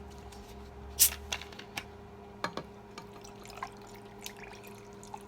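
Eating sounds: a sharp click about a second in, then scattered lighter clicks and taps, over a steady low electrical hum.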